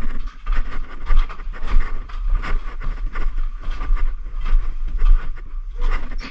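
Footsteps crunching over debris and climbing concrete stairs: short irregular crunches and scuffs, a few a second, over a steady low rumble from the camera being carried.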